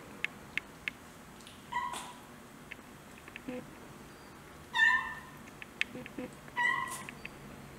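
Munchkin kitten meowing three times in short, high calls, the loudest about five seconds in, between small clicks of lapping from a dish of goat milk.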